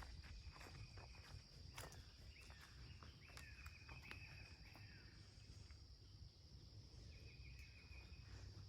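Faint insects calling, a steady high drone with several short, flat buzzy calls, over a hiker's scattered footsteps on the trail, most of them in the first couple of seconds.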